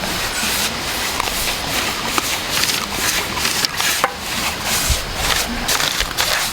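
Brush strokes scrubbing stain onto rough-sawn green red oak boards: a rapid, irregular scratchy swishing, stroke after stroke.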